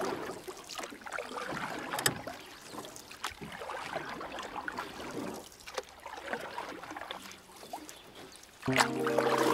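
Water splashing and trickling, uneven, with scattered sharp splashes. Near the end, music with held notes comes in, louder than the water.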